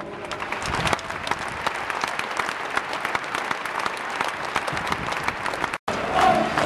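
Large stadium crowd applauding, a dense steady patter of many hands clapping. Near the end, after a brief break in the sound, the crowd starts singing a chant.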